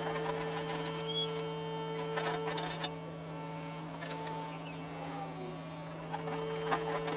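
John Deere 75 excavator running with a steady low hum. A higher tone rises over it and it gets louder while the machine works for the first three seconds and again near the end. A few knocks come through along with it.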